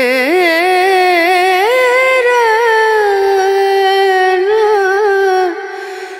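Background song: a solo voice singing long, ornamented notes that slide and waver in pitch over a sparse accompaniment, easing off about five seconds in.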